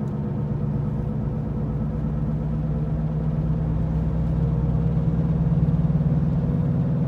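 A worn front wheel bearing drones steadily in a 2014 Ford Escape at highway speed, heard from inside the cabin over road noise. The low drone pulses with a helicopter-like beat and swells louder about four seconds in.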